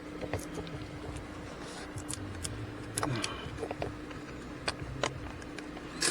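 Scattered light clicks and knocks of hands and tools handling a replacement blower motor as it is seated in its housing and its bolts started. Under them, the steady hum of the idling engine.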